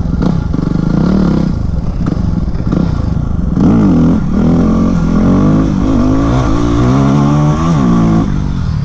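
Yamaha WR250X's single-cylinder four-stroke engine revving up and down under riding, its pitch rising and falling in repeated sweeps that come quicker and higher in the second half.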